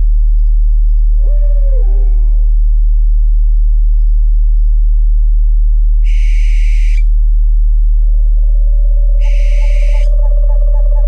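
A steady, very deep meditation tone hums throughout, with owl calls laid over it. A falling, arched call comes about a second in, and two harsh screeches follow around six and nine seconds. A steady higher tone joins about eight seconds in.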